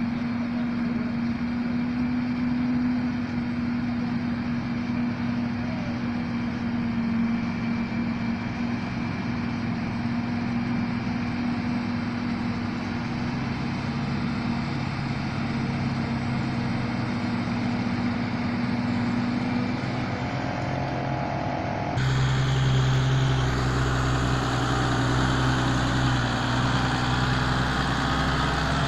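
New Holland FX58 self-propelled forage harvester chopping maize alongside a tractor: a steady machine drone with a held hum. About 22 seconds in it changes abruptly to a louder, close tractor engine hauling a loaded silage trailer past.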